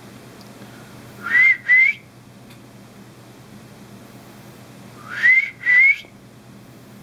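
A person whistling two short notes in quick succession, the first rising in pitch; the pair comes again about four seconds later. This is a call whistled to a fertile emu egg to get the chick inside to stir for a wiggle test.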